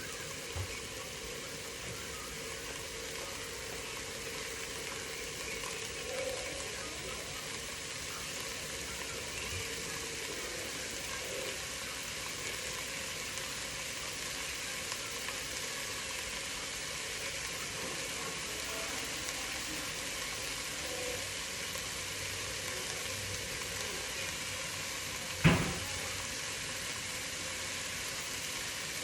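Pot of chicken soup with vegetables cooking on the stove, a steady hiss of sizzling and simmering. A single sharp knock sounds near the end.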